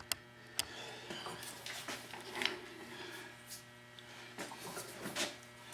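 Scattered light clicks, ticks and rustling of objects being handled, with a few sharper ticks near the start and slightly louder rustles about two and a half and five seconds in.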